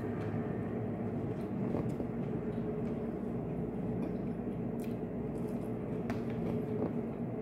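A person eating: faint chewing with a few soft clicks, over a steady low hum.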